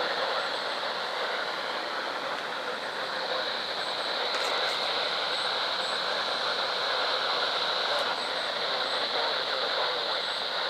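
Weather radio receiver hissing with steady static on a weak signal from NOAA Weather Radio station KEC91, its broadcast barely coming through. The poor reception is what the uploader puts down to overcast conditions.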